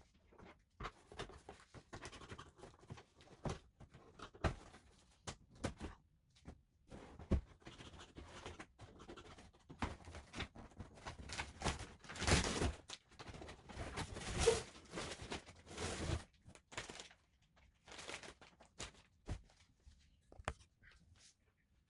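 A cardboard box being opened by hand: irregular scraping, tearing and rustling of packing tape and cardboard, with a louder run of rustling and scraping a little past the middle.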